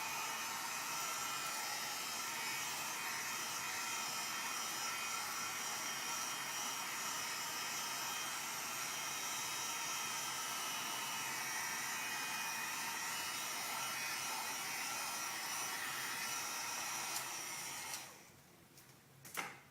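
Electric heat gun blowing steadily on a higher heat setting while shrinking plastic shrink-wrap film; it cuts off near the end.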